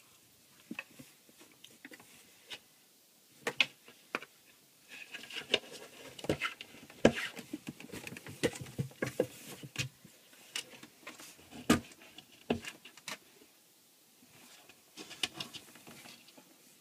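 A cat scuffling inside a wooden drawer while play-fighting a person's hand: irregular light knocks and scratching against the wood, mixed with rustling, most of them in the middle stretch.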